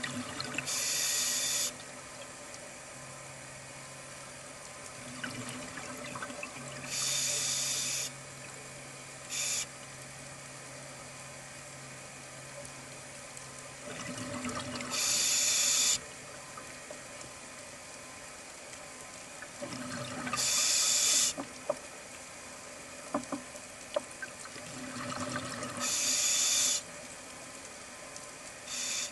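Diver breathing through a scuba regulator, heard underwater: about every five to six seconds a rising rush of bubbles, then a bright hiss lasting a second or two. A faint steady hum runs beneath during the first half.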